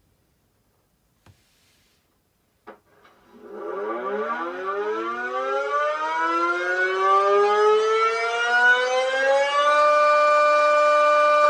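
Motor-siren wail recreated through public-address equipment. After two small clicks it winds up, climbing steadily in pitch for about six seconds, then levels off and holds one loud steady tone.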